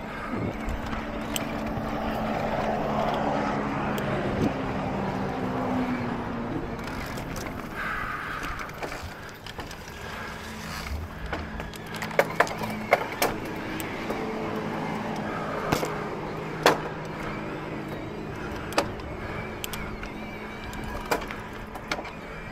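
Electric mountain bike riding a dirt trail: a steady motor whine that drops out for a few seconds around the middle, under tyre and wind rush, with sharp knocks and rattles from bumps, several of them clustered after about twelve seconds.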